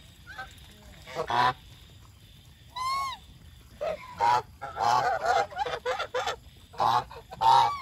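Geese honking: a single call about a second in, another near the three-second mark, then a run of overlapping honks from several birds and a loud call near the end.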